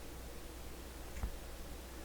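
Quiet workbench room tone with a steady low hum and hiss, and one soft click about a second in.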